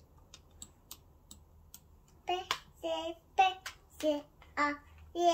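A toddler singing a string of short high-pitched syllables, about six in a row starting about two seconds in, with one longer held note at the end. Before that, a few faint clicks.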